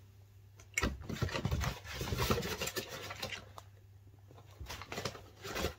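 Cardboard package being handled and opened by hand, in two stretches of scraping, rustling noise: one about a second in and another near the end.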